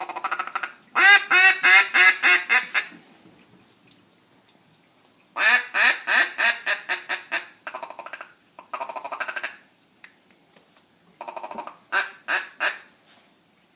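Duck call blown in several runs of rapid quacks, each run about eight quacks long, with short pauses between runs.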